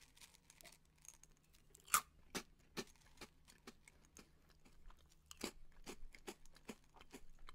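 Close-up chewing of a mouthful of dry Cocoa Puffs, a crunchy corn-puff cereal, with irregular crisp crunches as the puffs break up. A sharper crunch comes about two seconds in and another cluster about five seconds in.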